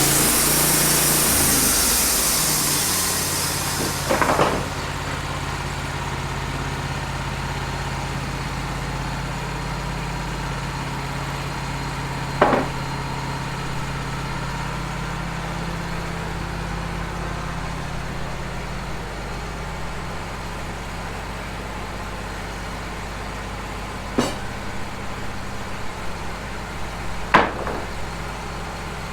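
Engine of a Wood-Mizer LT15 portable sawmill running steadily. A hiss stops about three seconds in, and a few sharp knocks come later.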